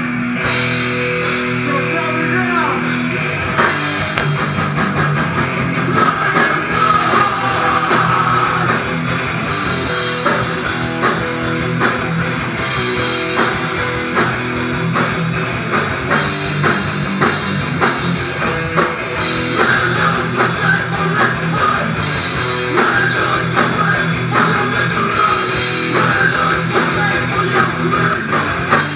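Live rock band with electric guitars, bass and drum kit playing loudly. Sustained guitar chords open the passage, and the drums come crashing in about three seconds in.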